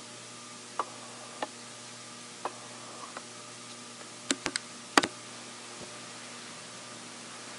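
Quiet church room tone: a steady hum and hiss, broken by a few scattered small clicks and knocks, with a quick cluster of sharper knocks about four to five seconds in.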